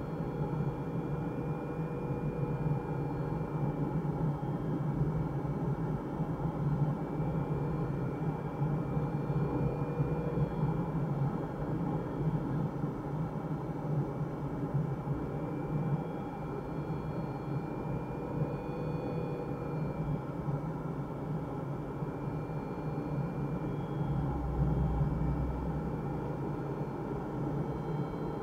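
Steady rush of airflow around a glider in flight, with a faint high tone that wavers slowly in pitch.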